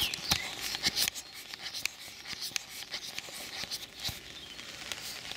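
A camera lens being wiped right at the microphone to clear it of mist: irregular rubbing and scuffing handling noise with scattered sharp clicks.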